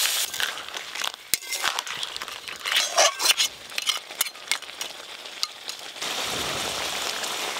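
Metal spatula clinking and scraping against a metal cooking pan, with scattered crackles from the crab curry gravy bubbling in it. About six seconds in, a steady sizzling hiss takes over.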